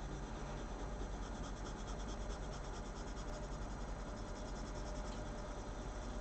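White coloured pencil scratching across hot pressed watercolour paper in quick, repeated short strokes.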